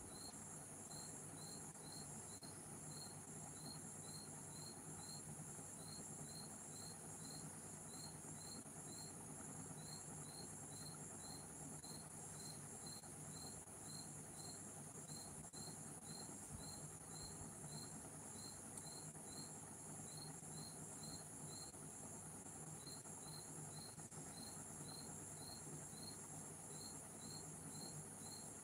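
Faint cricket chirping: short chirps about three a second in groups of four or five, with a brief pause now and then, over a steady low hum.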